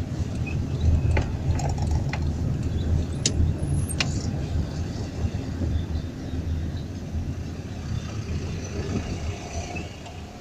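Daewoo Nexia car heard from inside the cabin while crawling in a traffic jam: a low, uneven engine and road rumble that eases off slowly toward the end. A few sharp clicks come in the first four seconds.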